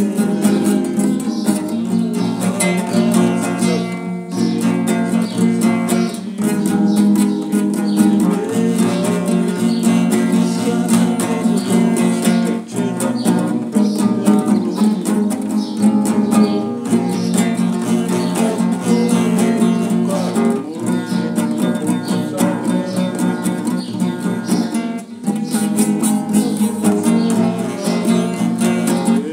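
Acoustic guitar strummed steadily, with a man singing along.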